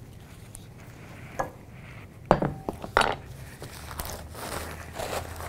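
A glass mixing bowl and kitchen utensils being handled on a countertop: a few separate clinks and knocks about a second apart, one of them ringing briefly.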